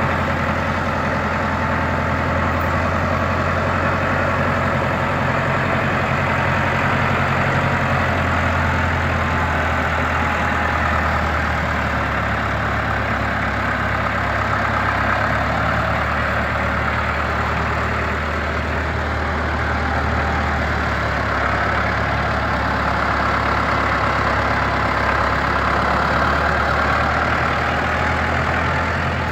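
Case IH 885 tractor's diesel engine running steadily at a low, even speed as the tractor is driven slowly around, with no revving.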